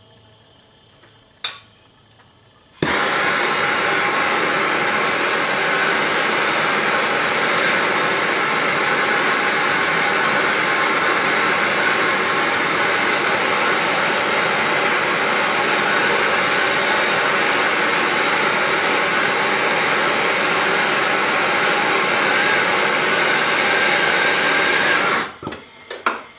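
Handheld gas soldering torch lighting with a sharp pop and then burning with a steady, loud hiss for about twenty-two seconds before it is shut off abruptly. The flame is heating a copper pipe joint to sweat-solder it. A single click comes shortly before the torch lights.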